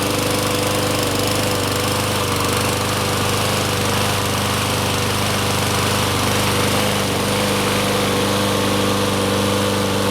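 Honda GCV160 single-cylinder 160 cc overhead-cam engine on a Troy-Bilt push lawn mower, running steadily at one constant speed.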